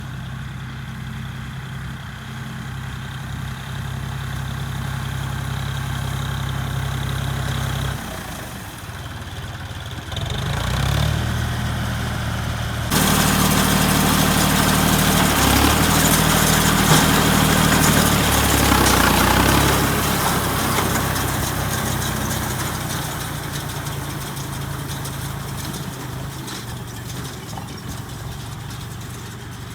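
Engine of a straw baler and the machine driving it running at a steady pitch. The sound dips briefly about eight seconds in, jumps abruptly louder and noisier about thirteen seconds in, and then eases off over the last third.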